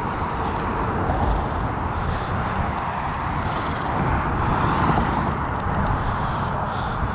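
Steady outdoor background noise: an even hiss over a low, uneven rumble, with no distinct events.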